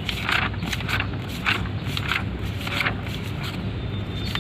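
Paper pages of a wiring diagram manual being leafed through, in short irregular rustles, over a steady low hum.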